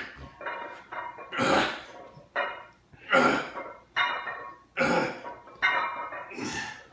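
A person breathing hard in a steady rhythm: a loud, forceful exhale about every second and a half, with quicker, softer breaths between.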